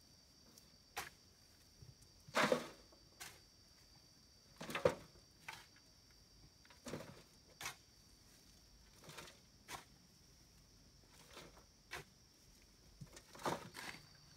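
Shovel scooping and tipping soil: irregular scrapes and knocks every second or so, the loudest two about two and a half and five seconds in. A steady high insect drone runs underneath.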